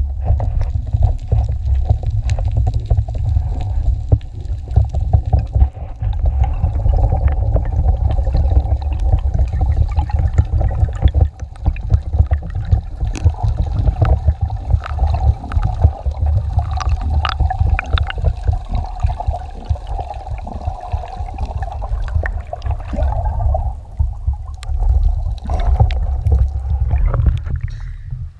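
Underwater sound on a camera housing during a spearfishing dive: a heavy, pulsing low rumble of water moving against the housing, with a steady mid-pitched hum that fades out near the end and scattered crackling clicks.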